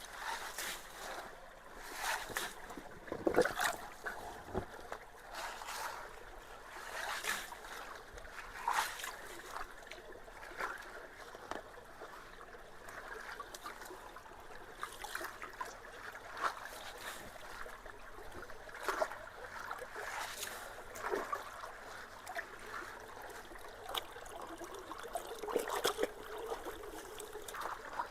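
Creek water trickling and running through a partly leaf-clogged culvert, with irregular splashes and knocks throughout as wet leaves are pulled out of the water.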